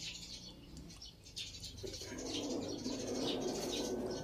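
Birds chirping in short, repeated high calls, with a louder, lower cooing sound joining about two seconds in.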